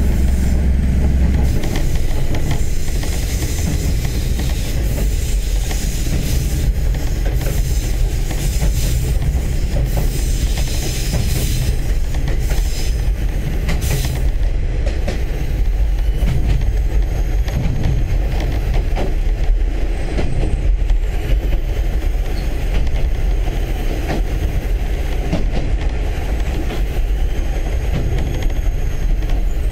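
Inside a KiHa 30 and KiHa 37 diesel railcar pair on the move: a steady low engine and running rumble with wheels on the rails. Over roughly the first half there is added high-pitched wheel noise with short clicks, which fades about halfway through.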